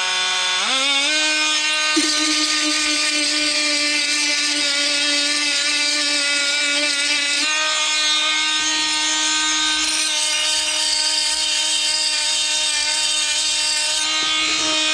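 Oscillating multi-tool running, its pitch rising to full speed about a second in and then holding steady, with a grinding, rasping hiss as the old blade's teeth are worn down against a metal cutting disc. The tool winds down at the very end.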